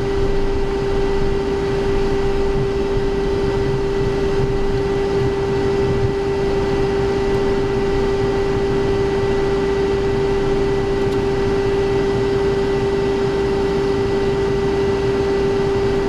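Cockpit noise of a Cessna Citation XLS with its Pratt & Whitney PW545 turbofans running at low, taxi power. It is a steady rush with a constant hum held at one pitch, and no rise in power.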